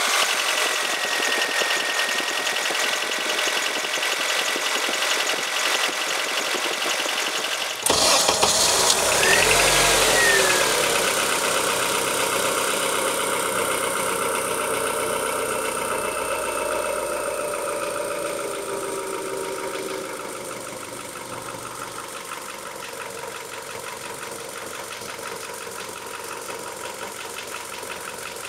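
Honda four-cylinder engine idling with a rapid top-end ticking, the sign of valve lash out of adjustment. About eight seconds in, the sound cuts to the same engine with its valves freshly adjusted: it starts, revs briefly, and settles into a quieter idle.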